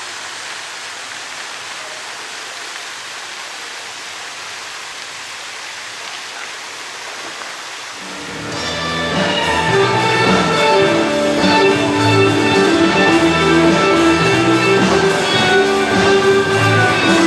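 A steady rushing noise, like running water or surf. About eight seconds in, instrumental music with guitar fades in and carries on louder.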